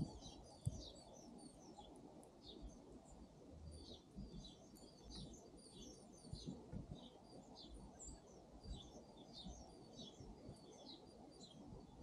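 Songbirds chirping: a steady stream of faint, short, high chirps, many in quick succession, over a low background rumble.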